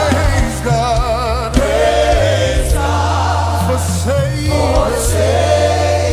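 Live gospel worship music: voices singing together with vibrato over a band with a steady, sustained bass line.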